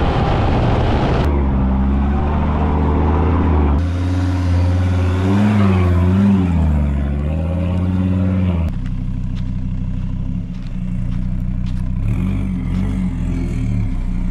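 Off-road car's engine running and revving, its pitch rising and falling, with the sound changing abruptly a few times as from cut to cut.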